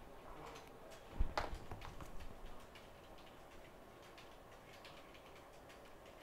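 A knock on a workbench about a second in, followed by a few light clicks, as small hand tools such as precision screwdrivers are set down. After that there are only faint scattered ticks.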